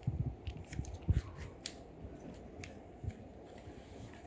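A kitten chewing cheese: small wet clicks and smacks, thickest in the first two seconds, with a few low thumps near the start and about a second in.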